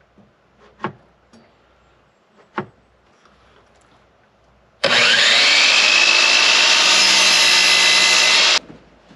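A few sharp knocks of wood being handled, then a DeWalt sliding compound miter saw's motor spins up with a rising whine and runs loud and steady through a cut for nearly four seconds, stopping abruptly near the end.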